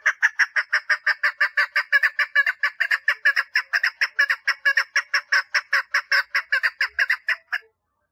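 Female chukar partridge calling to attract a mate: a fast, even series of short notes, about six a second, that stops shortly before the end.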